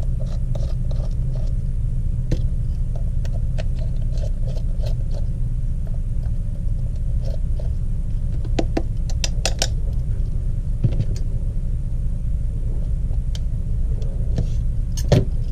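Scattered small clicks and ticks of a small Phillips screwdriver and tools working on the bottom of an LG G5 phone as its two screws are taken out, over a steady low hum.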